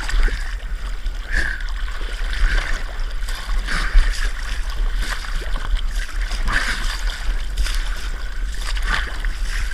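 Water splashing and lapping around a kayak's hull in irregular bursts, over a steady low rumble.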